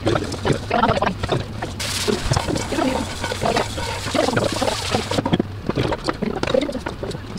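Hands rolling a soft blanched cabbage leaf around filling on a wooden cutting board: small crinkling, squishing and tapping sounds. A steady hiss comes in for about three seconds in the middle.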